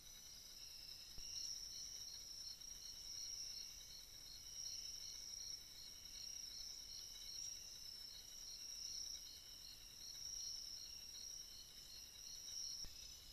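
Faint forest insect chorus: a steady high buzz with a cricket chirping evenly, about two to three chirps a second.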